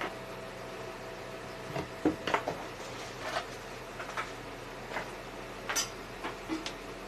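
Irregular small metal clicks and clinks of screws being undone on a sewing-machine motor's casing. A faint steady hum runs under the first two seconds.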